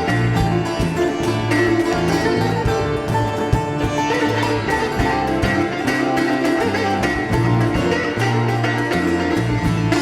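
Live Indian–Latin fusion music: plucked sitar and guitar over a walking bass line, with steady percussion strokes.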